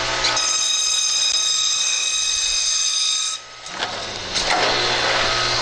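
A power tool motor running with a steady high whine over a noisy hiss. It cuts out sharply about three and a half seconds in and starts again about a second later.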